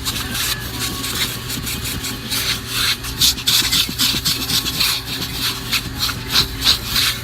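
Vacuum cleaner running steadily while its nozzle scrapes and rubs over car carpet in quick, uneven strokes, the scraping growing louder about halfway through.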